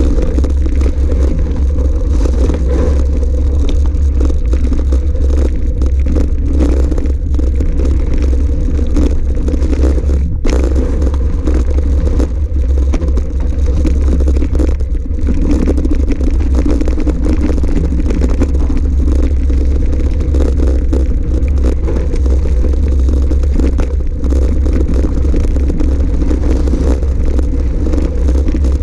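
Wind buffeting a bike-mounted action camera's microphone, with tyres rumbling and clattering over a loose gravel track as an electric mountain bike rides along at speed.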